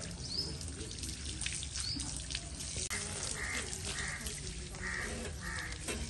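Water from a garden hose running and splashing on a wet sheep's fleece and the concrete, with birds chirping; in the second half a run of short calls repeats about twice a second.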